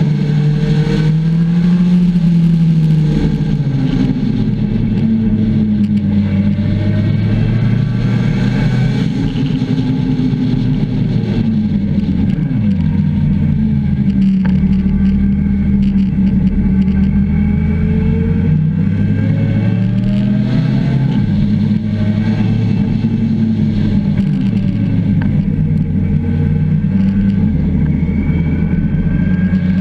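Motorcycle engine heard from the rider's own bike, its pitch rising and falling with the throttle and stepping with gear changes while riding a twisting road, over a steady rush of wind noise.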